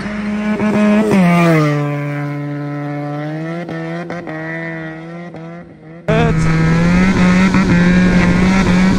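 Benelli motorcycle with an aftermarket exhaust running hard past the roadside, its engine note dropping sharply in pitch about a second in as it goes by, then fading with a few sharp crackles. About six seconds in it cuts to the same engine heard from on board, loud and running at steady high revs.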